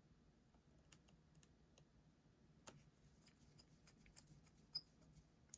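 Faint, scattered small clicks and ticks of a precision screwdriver and tiny screw being worked into the bottom edge of an iPhone 7 Plus; the clicks come more often from about halfway through, with one sharper tick near the end.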